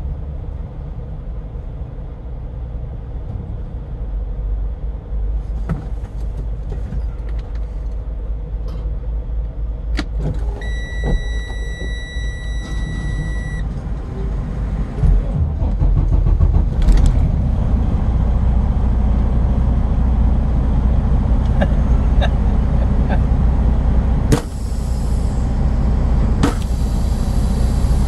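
Truck engine idling, heard from inside the cab: a steady low rumble that gets louder about halfway through. Near the middle a steady high beep sounds for about three seconds, and near the end two sharp onsets are each followed by a high hiss.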